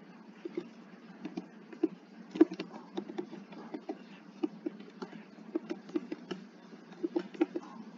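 Computer keyboard keys being pressed in slow, uneven typing, about two or three keystrokes a second: a beginner typing at roughly 12 words per minute.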